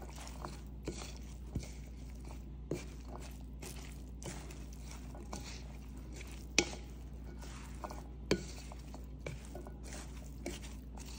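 Wooden spatula tossing couscous salad in a bowl: soft, irregular scraping and rustling strokes with a few sharper knocks against the bowl, over a steady low hum.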